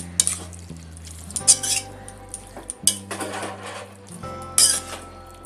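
Metal spoon scraping and clinking against a metal pot while stirring a thick, wet vegetable curry, in a few irregular strokes.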